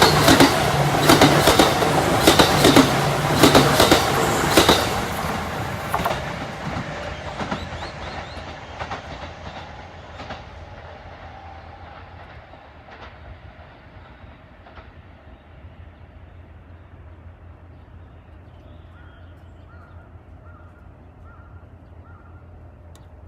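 Kintetsu electric train passing close by, its wheels clattering over rail joints in a quick, regular rhythm, then receding and fading away over about ten seconds.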